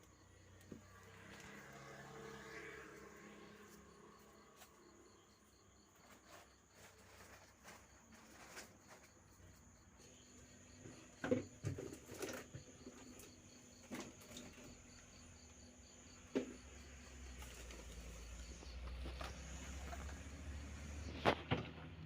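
Faint background hiss and hum with a few scattered knocks and clicks from things being handled while a shop cooler is cleaned out.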